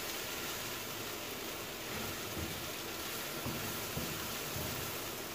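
Shrimp and spices sizzling in a frying pan as a spatula stir-fries them: a steady hiss with a few soft scrapes and knocks of the spatula against the pan.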